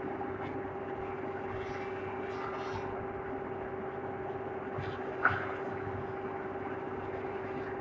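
Wood moulding machine running steadily with a constant hum, with one sharp knock about five seconds in.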